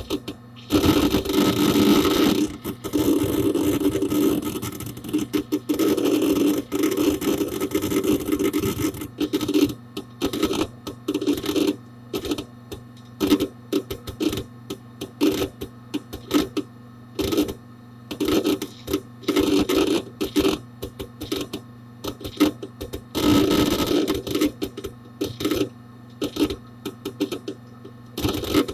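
Hard disk drive inside a Dell Dimension 4700 desktop seeking: rapid clicking and chattering of the read/write heads, in dense spells in the first few seconds, again from about six to nine seconds in and near the end, with scattered single clicks between, over the computer's steady low hum.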